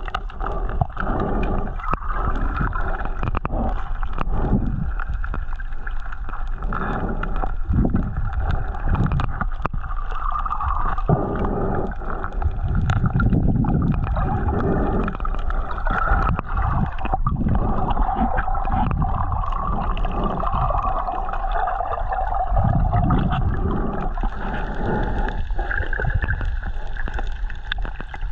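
Muffled water sloshing and gurgling in irregular surges, as heard by a camera in the water while snorkeling.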